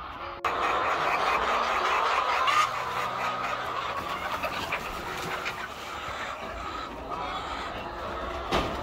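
A flock of white laying hens clucking and squawking, a busy continuous chatter from many birds at once, with a single thump near the end.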